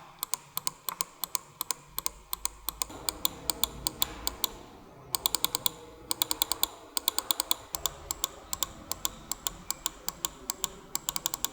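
Kailh GM-series microswitches (GM2.0, GM4.0, GM8.0) from a computer mouse being clicked over and over, sharp clicks several a second in runs, with a short break about five seconds in.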